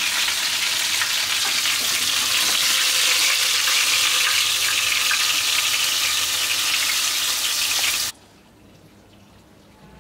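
Katla fish steaks sizzling steadily as they fry in hot oil in a kadai; the sizzling cuts off suddenly about eight seconds in.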